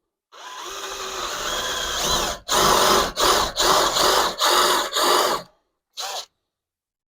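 Power drill running: one steady run whose pitch slowly rises, then about five short full-speed bursts with brief stops between, and one last short burst near the end, as it drills into the layout's woodwork to mount the NCE Power Cab interface panel.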